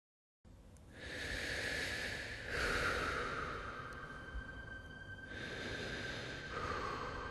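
Airy, breath-like whooshing swells over a faint steady high tone, starting after a moment of silence and rising three times, about one, two and a half, and six and a half seconds in.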